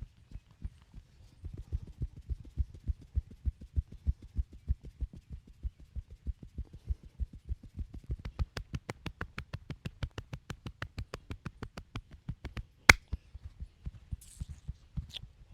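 Hands striking a body in quick rhythmic massage percussion, dull slaps about five a second that turn sharper and crisper about halfway through. One loud sharp crack stands out a few seconds before the end.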